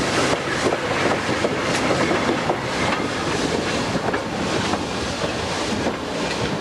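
Railroad cars rolling along the track, a steady rumble with the wheels clacking over the rail joints.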